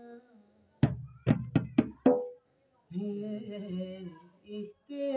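A man singing a slow devotional verse with long held notes. About a second in, the singing is broken by about five sharp percussive strikes in quick succession, then a lower sung phrase follows and a new phrase begins near the end.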